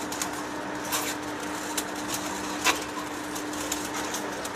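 Metal lathe taking a cut on a steel workpiece: steady machine running noise with a low hum. Scattered sharp clicks of metal chips, the loudest about two and a half seconds in.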